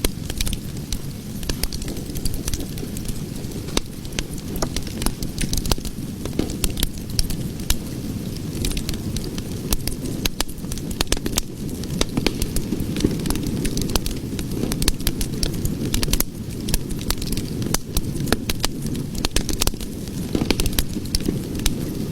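Cooking fire burning with a steady low rumble and frequent sharp crackles and pops throughout.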